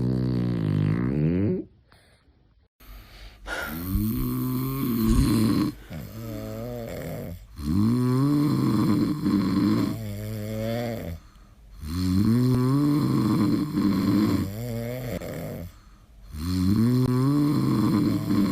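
Sleeping dog snoring loudly: long, drawn-out snores with a wavering pitch, one about every four seconds. A short sound falling in pitch comes first, followed by a brief pause.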